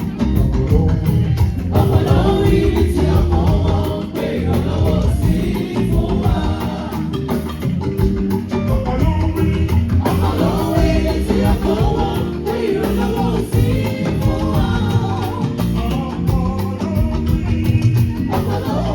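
Choir singing a Yoruba gospel song over a band with bass guitar and drums keeping a steady beat; the voices come in about two seconds in.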